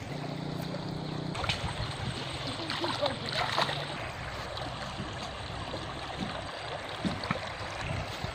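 Shallow stream running over stones, with scattered small clicks and ticks. A low steady hum is heard for about the first second and a half.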